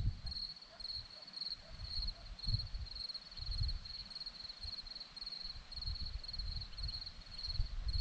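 Crickets chirping: a high, evenly pulsed trill repeated without pause. Gusts of wind rumble on the microphone underneath.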